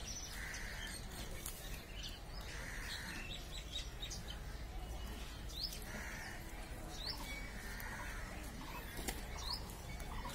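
Small birds chirping with short rising calls, repeated every second or so, over a steady low rumble. A few short rasping sounds come and go between the calls.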